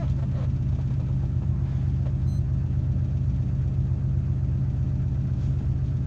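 Rally car engine idling steadily, heard from inside the cabin.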